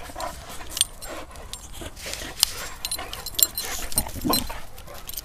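An Akita and a Boxer play-fighting at close range: scuffling with many sharp clicks and metallic jingles from collar and lead fittings, and a brief low dog vocalisation about four seconds in.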